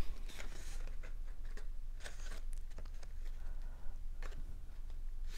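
Cardstock being handled and pressed together on a tabletop: a freshly glued paper apple strip laid onto a card base, with faint rustles, light taps and scrapes scattered through.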